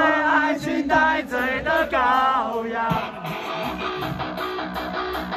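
Live heavy metal band playing: a wavering melody with vibrato for the first three seconds, then the band comes in with electric guitar chords and a steady beat, cymbal hits about three times a second.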